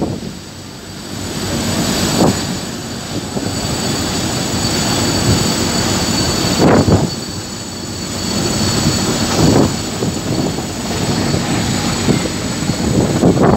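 Wind buffeting the microphone over the steady rumble of boat engines on a rough river, with louder gusts several times.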